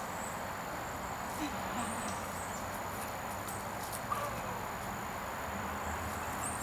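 Outdoor ambience: a steady hiss with a thin high tone held throughout and a few brief high chirps.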